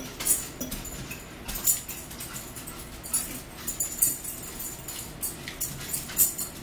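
Close-up eating sounds of spaghetti and meatballs being chewed: wet chewing and lip smacking in many short, irregular smacks.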